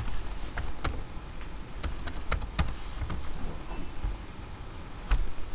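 Keys being typed on a computer keyboard: a few separate clicks at an uneven, unhurried pace as a word is entered letter by letter.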